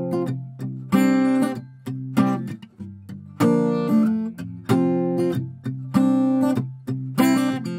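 Background music: acoustic guitar strumming chords, about one strum a second, each ringing out before the next.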